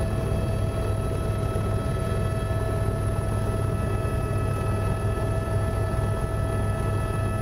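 Helicopter in flight heard from on board: a steady deep rotor drone with several constant high whining tones layered over it.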